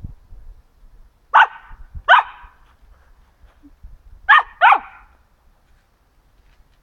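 Samoyed barking four short, sharp barks in two pairs, the second pair about three seconds after the first.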